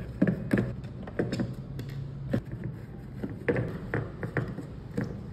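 Irregular clicks and taps of a screwdriver working on a motorcycle instrument cluster's plastic housing. Small metal screws are set down on a wooden table as they come out.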